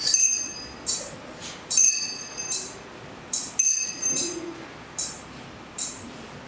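Altar bells ringing for the elevation of the chalice at the consecration: three shimmering metallic jingles about 1.8 seconds apart. Between them come shorter metal clinks at a steady pace of just over one a second, typical of a swinging thurible's chains.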